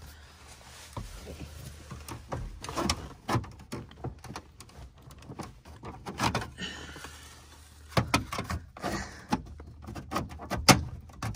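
Hard plastic dash trim on a 2002 Chevy Avalanche being handled and pressed in around the passenger-side air vent, with scattered irregular clicks and knocks of plastic on plastic.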